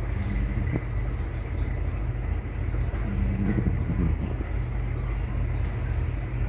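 Sleeping Pomeranian snoring: short, pitched, wavering snores near the start and again about three to four seconds in, in step with its slow breathing. A steady low rumble runs underneath.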